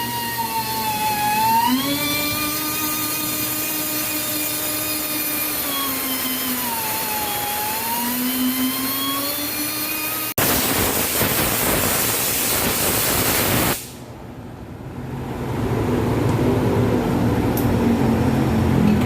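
A motor running with a steady whine that rises and dips in pitch. It stops abruptly about ten seconds in and gives way to a loud hiss lasting a few seconds, then a low engine rumble that grows louder.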